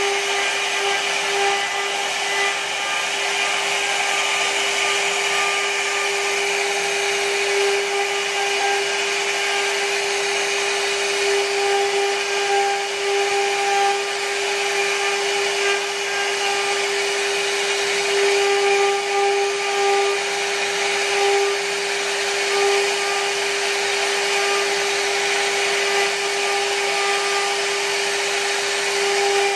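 CNC router spindle running at a steady whine while its small carving bit mills a relief pattern into a wooden panel, over a continuous hiss of wood being cut.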